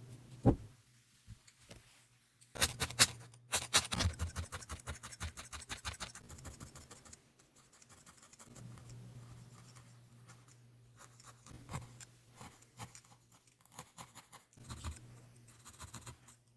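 A barbed felting needle jabbing repeatedly through wool into a foam pad: a quick dense run of pokes in the first half, then sparser, fainter pokes.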